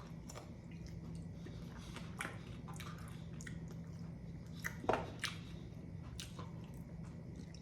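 A man chewing and biting into a sauced garlic Parmesan chicken wing, with wet, squishy mouth sounds and a louder bite or smack about five seconds in.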